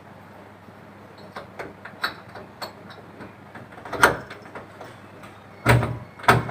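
Door knob hardware being fitted onto a door: a series of scattered clicks and knocks as the parts are handled and pushed into place, with a louder knock about four seconds in and two more near the end.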